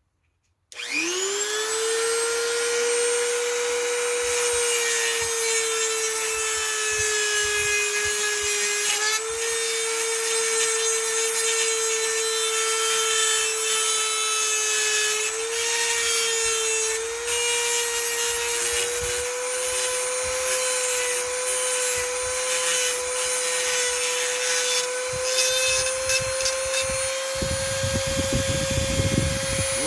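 A Dremel rotary tool spins up about a second in and runs with a steady high whine, grinding down the steel rakers on a Husqvarna C85 chainsaw chain to turn it into a milling chain. Its pitch dips briefly a few times as the bit bears on the metal.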